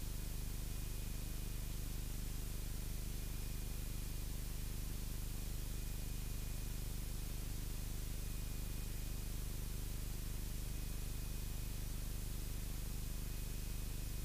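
Cessna 172's engine and propeller in flight, a steady low drone with an even hiss over it and a faint steady high tone.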